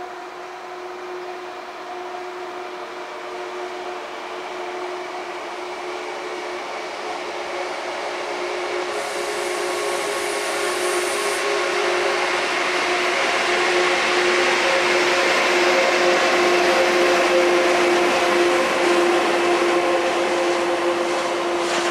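DB Cargo class 152 electric locomotive hauling a long container train past on the near track, running in toward a stop signal. The train noise grows steadily louder over a steady hum, with a high hiss about nine seconds in as the locomotive passes, and is loudest as the container wagons roll by in the second half.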